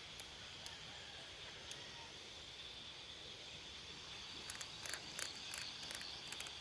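Crickets and other night insects trilling steadily on one high pitch. About two-thirds of the way in, a quick run of sharp crackling clicks begins.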